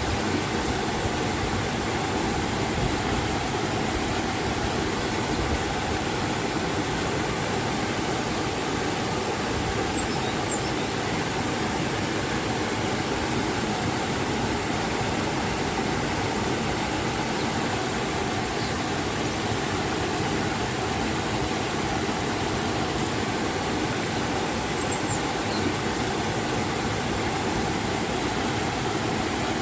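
River water rushing over a waterfall: a steady, even rush of water with no change in level.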